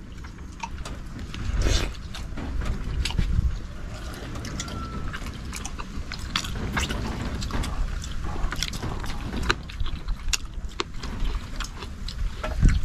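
Eating with the hands close to the microphone: chewing and the handling of rice and shellfish on a banana leaf, with many scattered small clicks and ticks.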